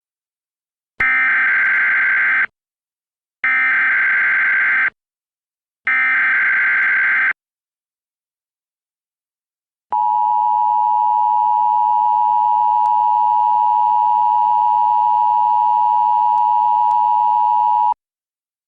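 Emergency Alert System SAME header: three harsh, buzzing digital data bursts of about a second and a half each. They are followed by the EAS two-tone attention signal (853 and 960 Hz together), a steady, loud, piercing tone held for about eight seconds that cuts off sharply. Together they open a new alert, here a civil danger warning.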